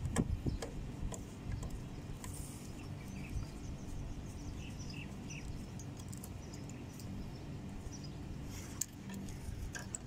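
Scattered small clicks and taps of hand tools and parts as a new magnetic contactor is fitted into an air conditioner's outdoor unit, over a steady low hum.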